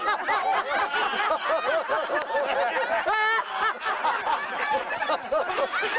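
Crowd of many people laughing together, with one voice crying out in a rising pitch about three seconds in.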